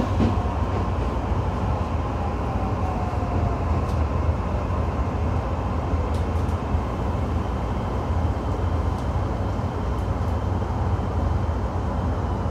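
E131 series electric train running, heard from inside the car: a steady rumble of wheels and running gear. A faint whine from its Hitachi SiC-VVVF inverter falls in pitch over the first few seconds as the train slows.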